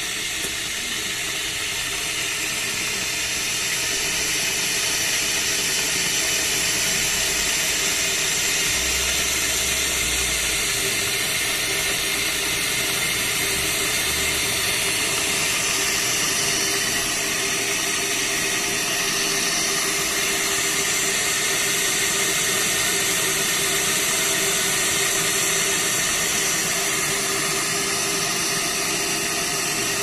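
Tough Mama stainless-steel electric kettle heating water toward a boil: a steady hiss over a low rumble, growing a little louder over the first few seconds and then holding level.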